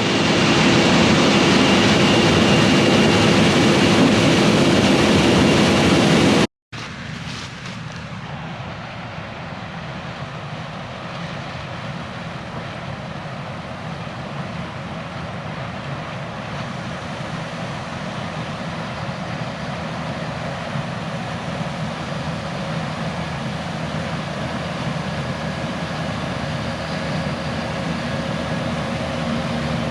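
Fendt Ideal 8 combine with a 12-row Drago corn head running steadily while harvesting corn. It is loud and close for about the first six seconds. After a sudden cut it is heard from farther off, growing slowly louder.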